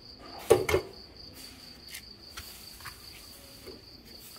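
Sheet-metal electronics enclosure handled and turned over by gloved hands: one sharp clunk about half a second in, then a few light clicks and knocks, over a steady high-pitched trill.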